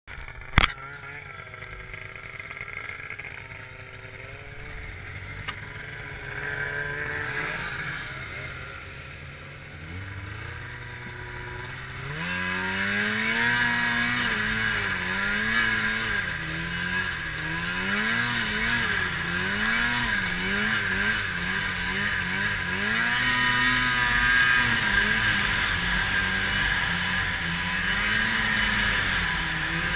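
Arctic Cat 700 two-stroke snowmobile engine running at low revs, then throttling up about twelve seconds in and rising and falling in pitch with the throttle while riding, over a hiss of wind and snow. A single sharp click comes just after the start.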